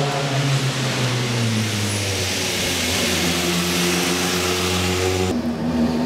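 Rally car engine running at a fairly steady pitch that drops in a couple of steps during the first two seconds. About five seconds in the sound changes abruptly to another engine note.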